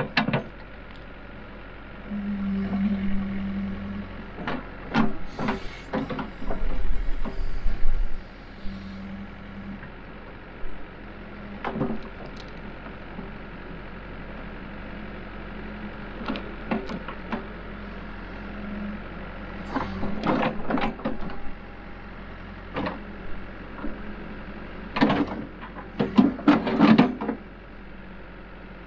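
Backhoe engine running steadily, rising in pitch under hydraulic load twice in the first ten seconds as the bucket moves soil. Repeated knocks and clatter of the bucket and falling dirt and stones come in clusters, loudest near the end.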